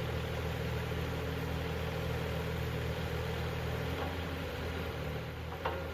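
Kubota KX040 mini excavator's diesel engine running steadily while the boom and arm are worked hydraulically. The engine note shifts slightly about four seconds in, and there is one short knock near the end.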